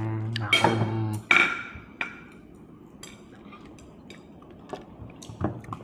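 Cutlery and dishes clinking: a loud ringing clink about a second in, then scattered light taps and clicks. A short drawn-out vocal sound opens it.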